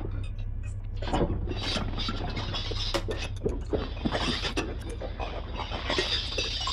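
Electroacoustic tape music: irregular swells of hissing, rasping noise and scattered sharp clicks over a steady low hum.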